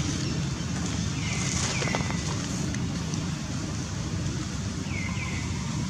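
Outdoor ambience: a steady low rumble, with a pair of short high chirps sliding downward about one and a half seconds in and another pair about five seconds in.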